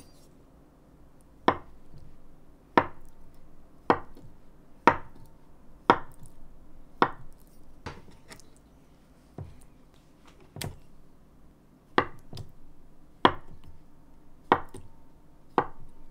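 Chef's knife slicing a block of tofu into slabs on a wooden cutting board, each cut ending in a sharp tap of the blade on the board, about once a second.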